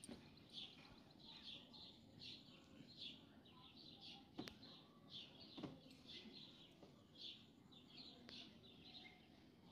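Faint bird chirping, short high chirps repeated about once or twice a second over near silence, with a couple of soft clicks near the middle.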